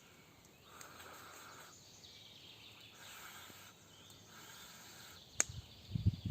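Faint woodland ambience: a buzzy call repeating in bouts of about a second, a sharp click a little after five seconds in, then low rustling and knocking near the end.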